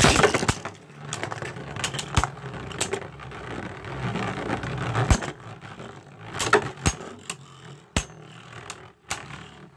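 Two Beyblade Burst spinning tops, Spryzen Requiem and the metal-armoured Revive Phoenix, launched into a plastic stadium with a loud clatter. They then spin with a steady whir, with repeated sharp clacks as they collide.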